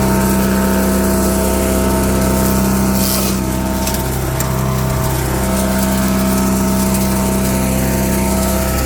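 Wood chipper's small petrol engine running steadily, with a brief harsh rush of noise about three seconds in and a slight dip in loudness just after it.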